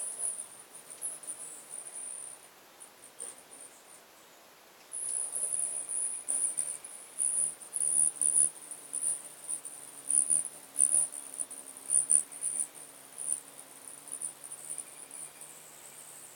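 Several hummingbirds' wings humming and buzzing as they hover and dart about, under a high, pulsing trill that swells and fades. The trill drops away for a couple of seconds about two seconds in, then comes back.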